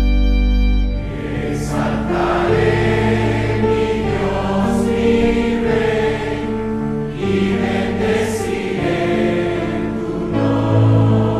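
A held organ chord ends about a second in, and a choir takes over, singing long sustained notes.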